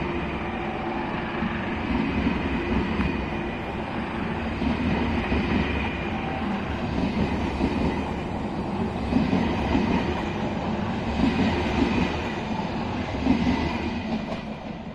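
ÖBB Railjet passenger train rolling past on the rails, wheels clattering over the track, with a steady running noise; its Siemens Taurus electric locomotive goes by near the end and the sound fades.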